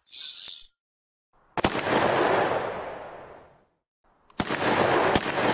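Gunfire sound effects: a short high hiss, then a single gunshot with a long echo that fades over about two seconds. About four seconds in comes a dense, rapid crackle of many shots.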